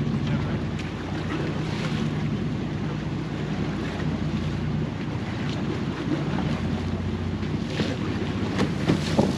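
Wind buffeting the microphone and water washing against a fishing boat's hull, over a steady low hum, with a few short knocks near the end.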